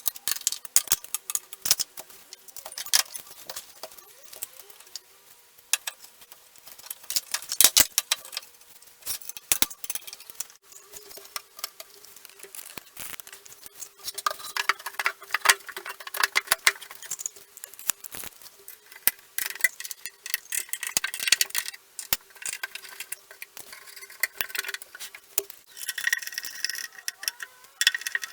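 Flat-pack desk being assembled: irregular clicks, taps and rattling of small metal fittings and hand tools being handled.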